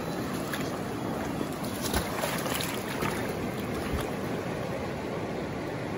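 River water running steadily around the wader's legs, with hands splashing in the shallows about two and four seconds in.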